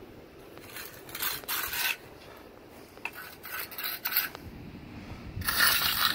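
Steel hand trowels scraping over a fresh wet concrete slab, a rasping hiss with each pass in a series of short strokes, the loudest one near the end.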